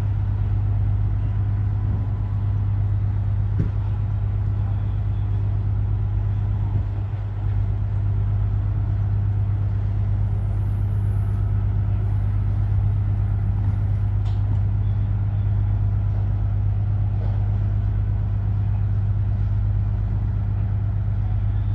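A large engine running at a steady idle: a constant low hum with a fine, even pulse that does not change.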